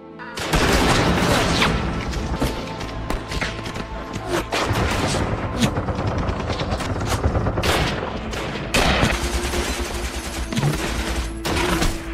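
Battle gunfire in a film: a dense fusillade of many shots in quick succession, beginning about half a second in and going on without let-up.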